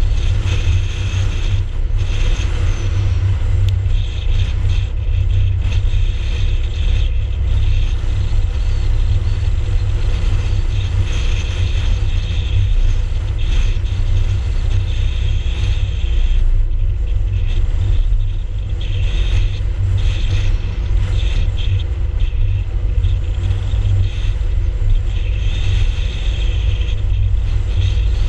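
Car driving steadily along an open road: a continuous deep rumble of road, wind and engine noise, heard from a camera mounted low on the outside front of the car, with a fluttering hiss over it.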